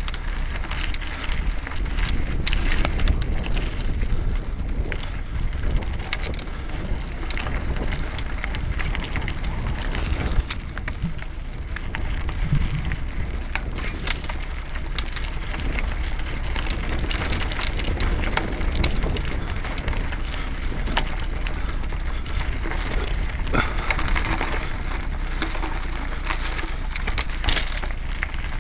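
Mountain bike ridden over a dry dirt and stony trail: a continuous crackling rumble of tyres on dirt, with frequent clicks and knocks as the bike jolts over the ground.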